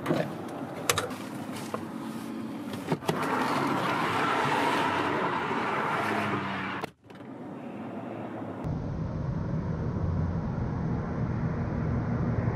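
Clicks of a car door being opened, then the rushing of highway traffic coming in through the open door. After a cut there is a steady low traffic rumble.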